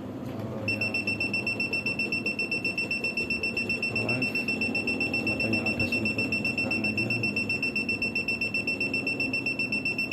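Aneng 681 multimeter's buzzer sounding one continuous high-pitched beep that starts under a second in.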